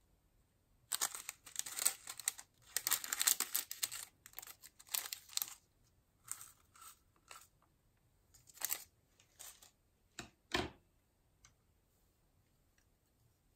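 Small plastic zip bag crinkling as it is handled and opened, followed by sequins being shaken out of it into a glass bowl: scattered light ticks, with one sharper click about ten seconds in.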